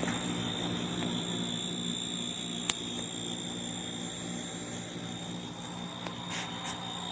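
Portable dehumidifier running: a steady low hum with a thin, high-pitched whine over it, and a single light tick about three seconds in.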